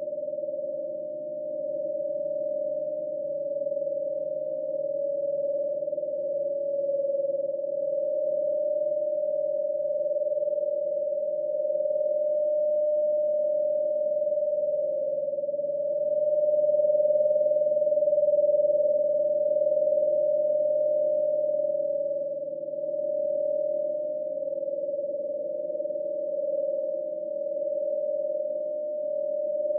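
Synthesized ghost sound effect: one long, steady high tone that wavers slightly in pitch and loudness, over a faint low hum.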